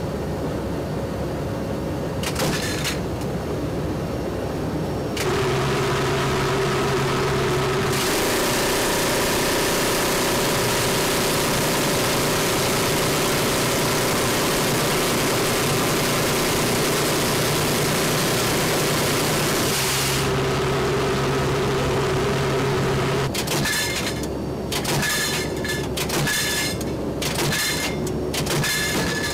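Steady drone of the AC-130U gunship's four Allison T56 turboprop engines and propellers, heard inside the cabin, with a low hum running underneath. Near the end the drone is broken by a series of short, sharp knocks.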